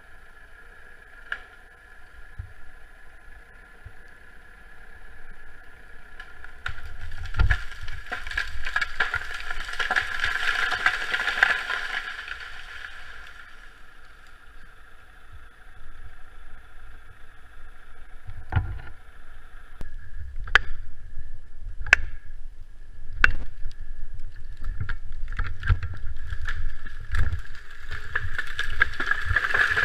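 Chainsaw running throughout while felling trees. It is louder and harsher in two stretches, about 7 to 13 seconds in and again near the end, while cutting. In the second half come several sharp knocks and thumps.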